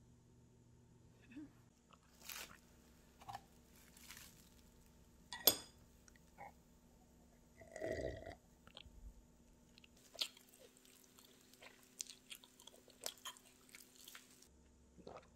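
Quiet eating and drinking at close range: scattered bites and crunchy chewing, a sharp click about five and a half seconds in, and a sip from a glass of beet juice around eight seconds in.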